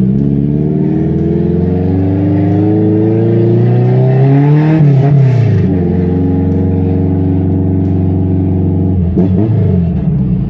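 Ford Versailles' naturally aspirated, Weber-carbureted AP four-cylinder engine accelerating, its pitch climbing for about five seconds, then dropping at an upshift and running steady, with a second drop in pitch at another shift near the end.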